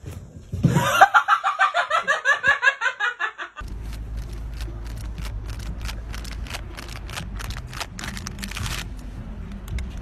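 A person laughing hard in quick, rapid bursts. It cuts off suddenly and is followed by a steady low rumble with scattered clicks.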